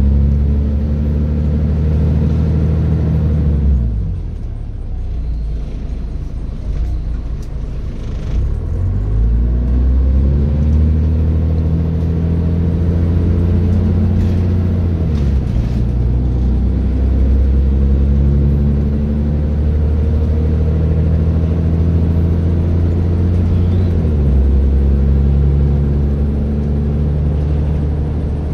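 Scania Citizen bus diesel engine running under way with a deep, steady rumble. Its note drops sharply about 4, 15 and 24 seconds in, and climbs again after a quieter stretch between about 4 and 9 seconds.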